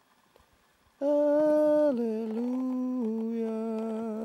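A man humming about a second in, holding three long notes, each a little lower than the one before.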